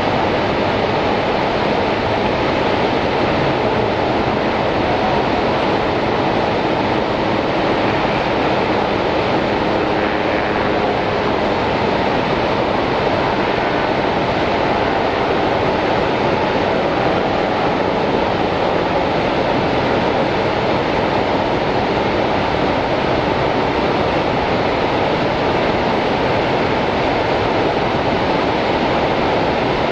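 The American Falls at Niagara: a large waterfall pouring, a loud, steady rush of falling water that never changes.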